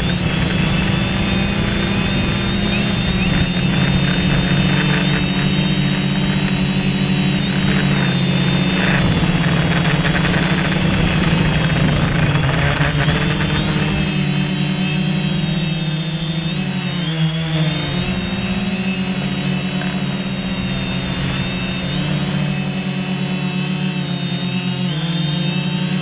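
Quadcopter drone's motors and propellers running with a steady hum, the pitch wavering as it changes height and direction in the second half. A thin steady high whine runs above it, and a low rumble drops away about halfway through.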